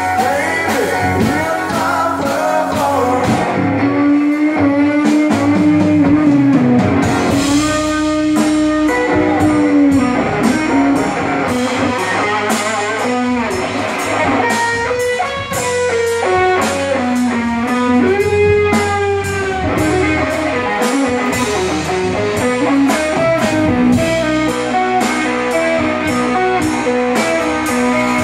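Live rock band playing an instrumental section: an electric guitar solo of long, sustained notes that bend up and down, over drums and bass guitar.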